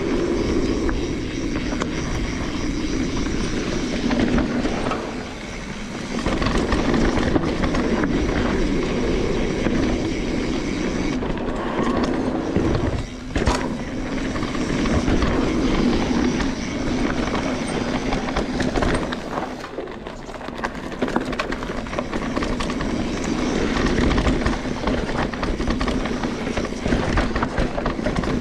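Mountain bike riding fast down a dirt singletrack: steady tyre noise over the dirt with a busy rattle from the bike, and one sharp click about thirteen seconds in.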